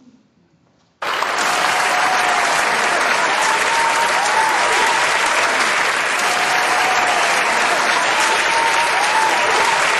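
A large crowd clapping, cutting in suddenly about a second in after near silence and then keeping up a steady, dense applause.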